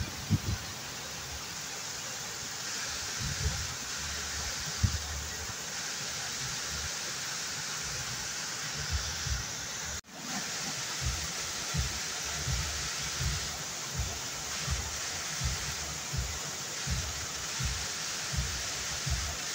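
Waterfall: a steady rush of falling water, with soft low thumps scattered through it. About halfway the sound cuts out for an instant and comes back.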